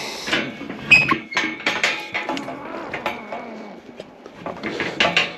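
Galvanised steel tubular gate being swung shut and latched: a run of metallic clanks and rattles, the loudest about a second in, followed by a thin ringing tone from the metal.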